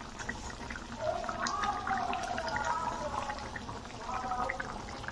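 Fish pieces being added to a pan of simmering curry: liquid splashing and bubbling, with scattered small clicks.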